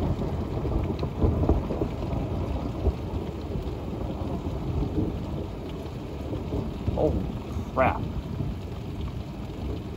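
Thunder rumbling and slowly dying away over steady rain. Two short rising pitched sounds come about seven seconds in.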